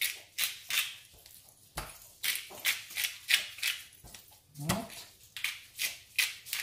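Hand pepper mill being twisted, grinding peppercorns in short rasping bursts about two or three times a second.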